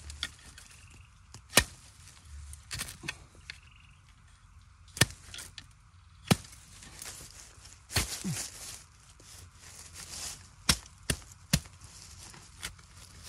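Metal digging spade chopping into the soil and base of a bamboo shoot to cut it loose from the clump: about eight sharp strikes at uneven intervals of one to three seconds.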